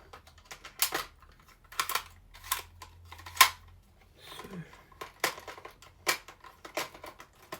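Hard plastic clicks and taps from handling a Buzz Lightyear action figure, about seven sharp clicks spaced roughly a second apart, the loudest about halfway through.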